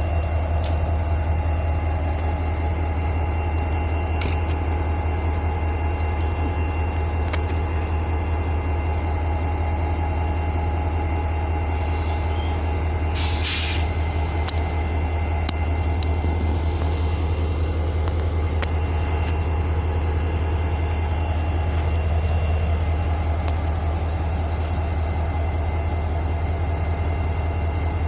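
Norfolk Southern 3517 diesel locomotive idling with a steady low rumble. About halfway through, a short hiss of air, typical of the air brakes venting.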